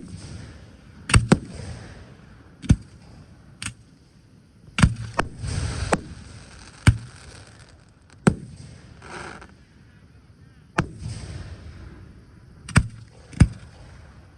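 Aerial fireworks bursting: about a dozen sharp bangs at uneven intervals, some followed by a brief crackle of the shells' effects.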